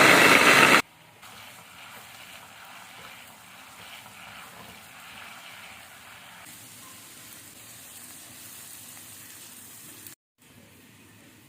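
An electric blender runs loudly and stops abruptly within the first second. After it comes a steady faint hiss that breaks off suddenly about ten seconds in.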